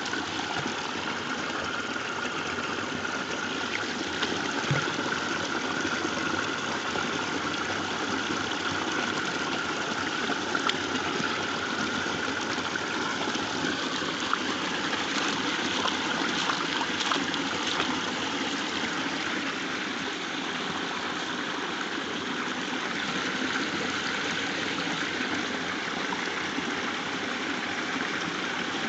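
Small waterfall and stream water rushing steadily, with a few faint clicks scattered through it.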